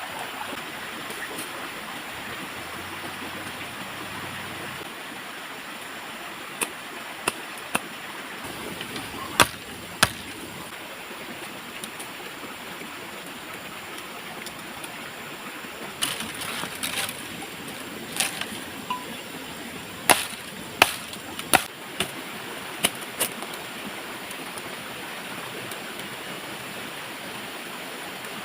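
Steady rushing of flowing water, with about a dozen sharp knocks and clicks scattered through it, some singly and some in quick clusters.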